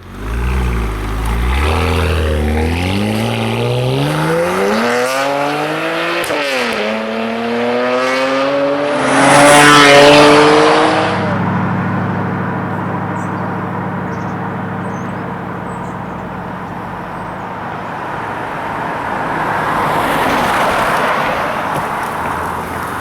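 BMW 335i twin-turbo straight-six with decats and an AC Schnitzer quad exhaust, accelerating hard: the note climbs steadily, dips briefly at a gear change about six seconds in, climbs again to its loudest around ten seconds in, then drops off to a steady lower drone.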